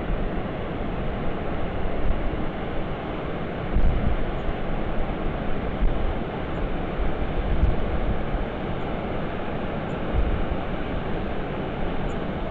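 Steady rush of flowing river water, with a few gusts of wind buffeting the microphone.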